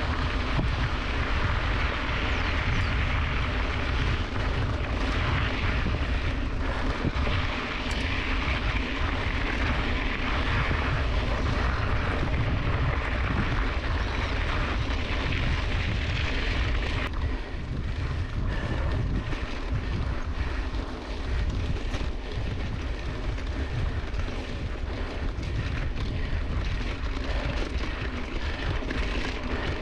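Wind buffeting the microphone of a handlebar-mounted action camera on a mountain bike rolling over a dirt track, with tyre hiss and scattered knocks from bumps. The hiss thins out a little past halfway.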